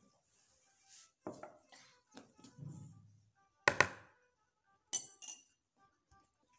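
Metal spoon clinking and knocking against a plastic mixing bowl while a lump of smen is scooped and tapped off into it. There are a few separate knocks, the loudest a sharp double knock about halfway through.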